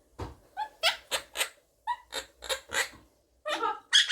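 Blue Quaker parrot (monk parakeet) making a run of about ten short, squeaky chirps and chatter, then a longer, louder call near the end.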